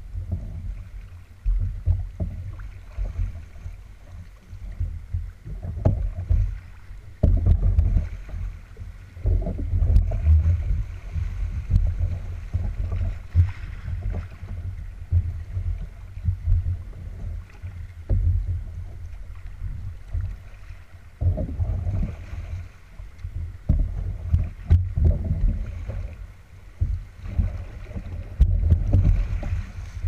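Canoe running fast, choppy river water: water rushing and slapping along the hull, under an uneven low rumble of wind buffeting the camera microphone that swells and fades every second or two.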